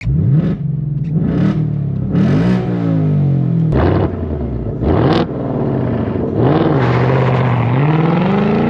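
2024 Ford Mustang GT's 5.0-litre V8, with a Steeda H-pipe exhaust, revving in a series of quick blips that rise and fall, then a longer, slower climb in revs near the end.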